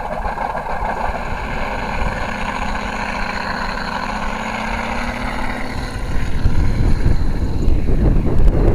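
Simulated radial aircraft engine sound played by a Benedini TBS-Mini sound module through its speakers: running steadily with the pitch creeping up, then getting louder and fuller about six seconds in as the throttle is opened.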